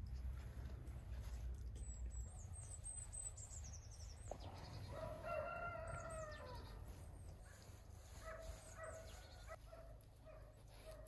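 A rooster crows once near the middle, one held call of about two seconds that falls away at its end. Fainter short calls follow, over high, quick bird chirps.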